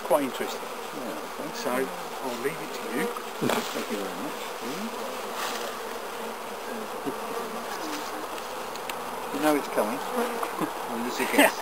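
Honeybees buzzing around an open hive, single bees flying close past with their buzz bending up and down in pitch, over a steady hum of the colony. A light knock or two sounds against the buzzing.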